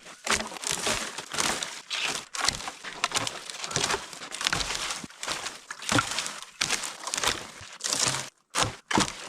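Irregular crunching and crackling of brush and branches as firewood is gathered and handled, with a few brief breaks near the end.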